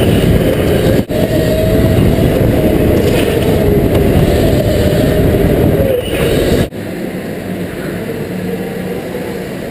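Indoor electric go-kart driven at speed, heard from the kart itself: a steady motor whine over heavy rumble. The sound breaks off sharply about a second in and again near seven seconds, and is quieter after the second break.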